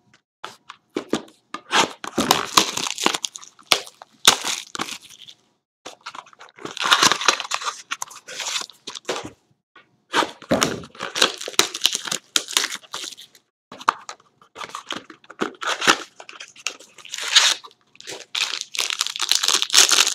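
Plastic wrapping on a box of baseball trading cards being torn open and crinkled, in irregular crackly bursts with short pauses.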